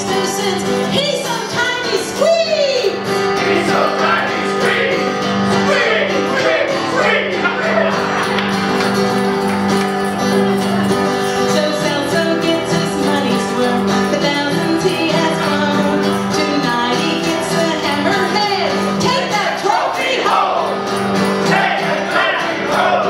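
Live song performed with acoustic guitar, with singing voices over steady sustained chords.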